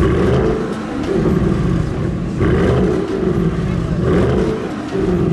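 Audi RS6 C8's twin-turbo V8 being revved through its exhaust in several quick blips, the note sweeping up and falling back again three or four times.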